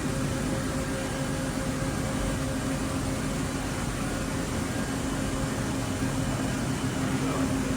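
Ikegai TNC-75 CNC lathe running under power: a steady mechanical hum with a constant low tone over an even whirring noise.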